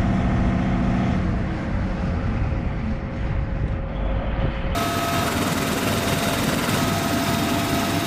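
Military helicopter running, with a steady noise of rotor and turbine. About halfway through the sound changes abruptly to a steady noise with a thin high whine.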